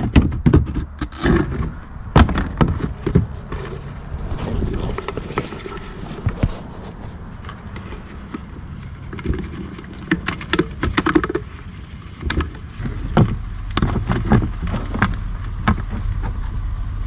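Plastic bait buckets being handled: a snap-on lid pried off, then crabs tipped from one bucket into another. Irregular clatters and knocks of plastic come thickest in the first few seconds and again near the end.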